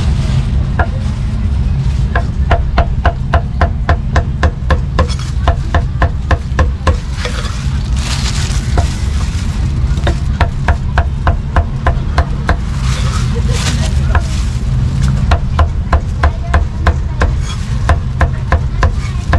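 Steel meat cleaver chopping cooked meat on a thick round wooden chopping block: sharp knocks in quick runs of several strokes, about three to four a second, over a steady low rumble.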